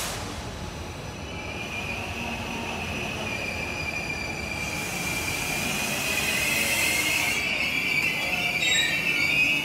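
Train wheels squealing against the rails in one long high screech that rises slightly in pitch and grows louder toward the end, over the steady rumble of the train. A hiss joins in midway.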